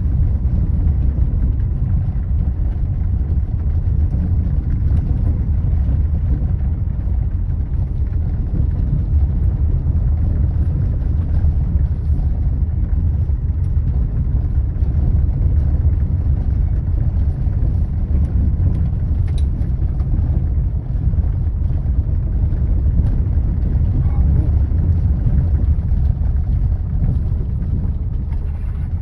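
Steady low rumble of a vehicle driving slowly over a gravel track, engine and tyre noise heard from inside the cabin.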